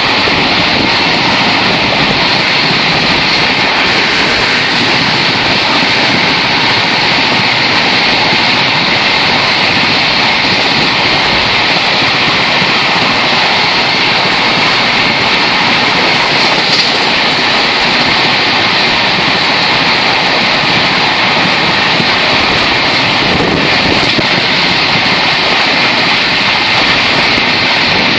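Loud, steady rushing noise of a passenger train running at speed: wheels rolling on the rails and wind streaming past the open carriage window.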